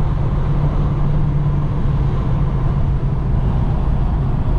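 Inside the cabin of a 1985 Chevrolet Monte Carlo SS cruising down the road: a steady V8 engine hum mixed with tyre and road noise. It runs evenly with no rattles or knocks, the car freshly aligned on new tyres.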